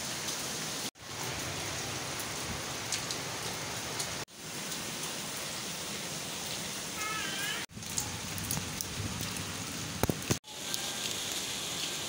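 Heavy rain falling in a steady, dense hiss, cut off for an instant about four times.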